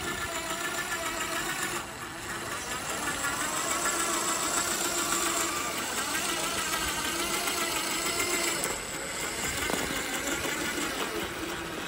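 Electric motor and geartrain of an RC4WD Trail Finder 2 scale crawler whining as it crawls over rock, the pitch wavering up and down with the throttle.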